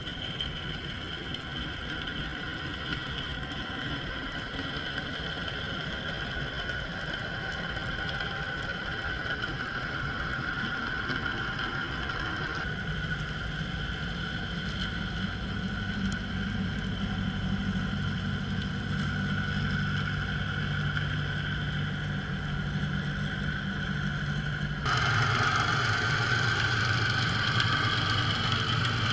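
Steady engine-like hum with a high whine over it, heard underwater. It shifts in tone and gets louder abruptly about 13 seconds in and again near the end.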